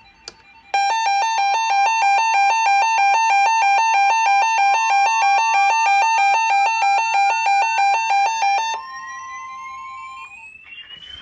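Emergency Alert System alert tones: a loud electronic tone alternating rapidly between two pitches, about five pulses a second, for about eight seconds, with a second tone gliding slowly upward beneath it. A short steady tone follows, and near the end a buzzy data burst begins.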